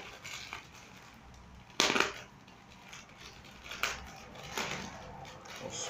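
Plastic courier mailer bag being slit with a utility knife and pulled open by hand: irregular crinkling and tearing of the plastic, loudest in a sudden burst about two seconds in, with smaller bursts later.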